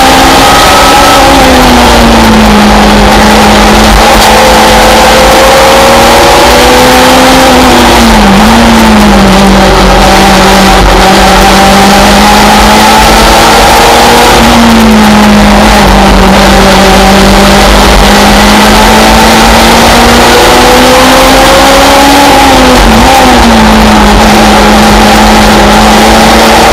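Simca Rallye 3 race car's engine running hard at racing pace, heard from inside the cockpit, its pitch rising and falling through the corners and dipping sharply twice as the driver lifts or shifts. A steady rush of wind and road noise lies under it.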